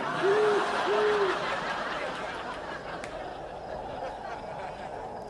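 Studio audience laughing, the laughter fading over a few seconds, while an owl hoots twice near the start.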